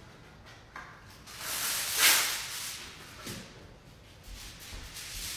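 Aluminium foil being pulled off its roll and torn, a crinkly rustling hiss that swells to a sharp peak about two seconds in and then fades, with more rustling near the end.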